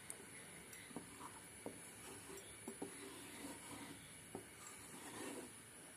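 Faint scraping of a spatula stirring thickened milk in a nonstick pan, with a few light taps of the spatula against the pan.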